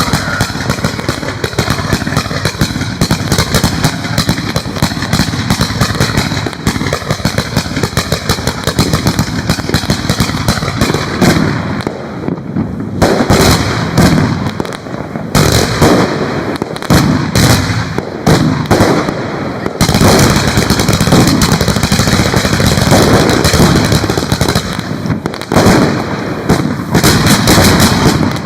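Fireworks going off in a long, dense barrage of rapid bangs and crackling, with a few brief lulls before it resumes.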